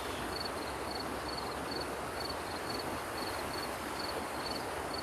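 A cricket chirping in short high pulses about twice a second, over a steady rushing background noise.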